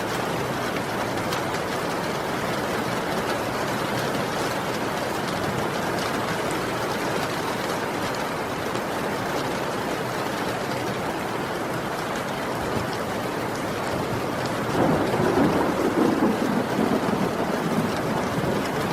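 Heavy rain falling steadily, with a low rumble of thunder rolling in about fifteen seconds in and lasting to the end.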